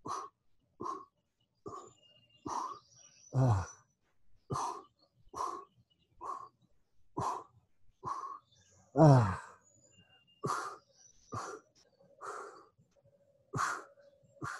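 A man exhaling hard with each lifted-leg crunch, short breaths at just under one a second, twice pushed out as a louder voiced grunt. Faint bird chirps sound behind.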